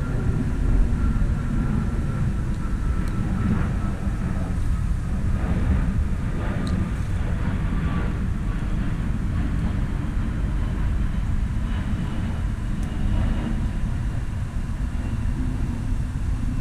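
A distant engine drone over a steady low rumble, its faint whine slowly falling in pitch.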